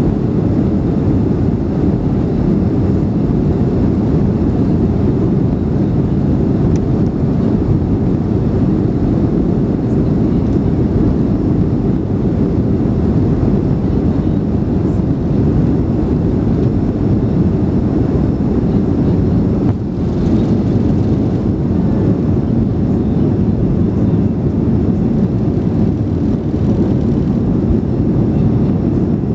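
Cabin noise of a Boeing 737 at takeoff thrust, heard from a seat over the wing: a steady, loud, deep rumble of the jet engines and the rolling aircraft. The plane leaves the runway partway through and climbs out.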